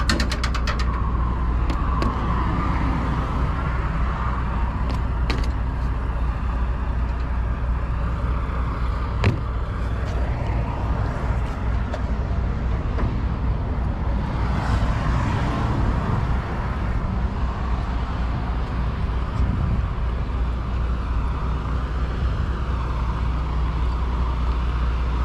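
Semi truck's diesel engine idling steadily, a low hum throughout, with a short rattle of clicks at the start and a swell of passing road noise about fifteen seconds in.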